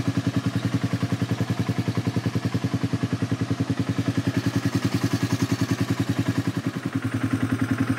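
Quad (ATV) engine running steadily under way, an even throb of about ten pulses a second.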